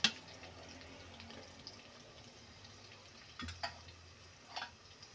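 Oil and onions sizzling faintly in an aluminium pressure cooker over a low hum, as chilli powder and salt go in. A sharp knock comes right at the start, and a few shorter knocks against the pot come about three and a half seconds in and again a second later.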